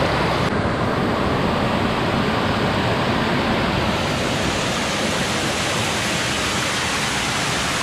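Waterfall cascade rushing and splashing steadily over a rock face into a pool, turning brighter and hissier about four seconds in.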